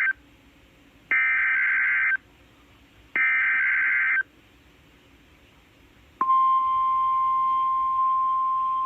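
NOAA Weather Radio Emergency Alert System header: the end of one two-tone digital SAME data burst, then two more bursts of about a second each, a second apart. About six seconds in, the steady 1050 Hz weather radio warning alarm tone starts and holds; it is the tone that switches receivers on automatically for a test or warning.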